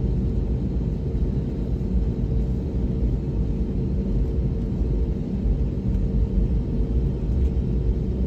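Jet airliner cabin noise during taxiing: the engines and airflow make a steady low rumble, with a faint steady hum above it.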